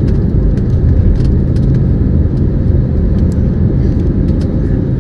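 Steady, loud low roar of a jet airliner's engines and rushing air heard inside the passenger cabin during the climb after takeoff, with a faint held tone over it.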